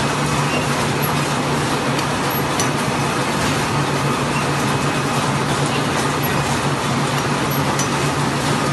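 Automatic paper napkin converting machines running: a steady, dense mechanical din with a constant low hum and a few faint clicks.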